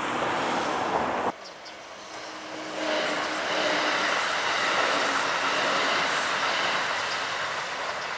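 Wind buffeting the microphone for about the first second, cut off suddenly, then a Kintetsu electric train running past: a steady rush of wheel and rail noise that builds about three seconds in and slowly fades near the end.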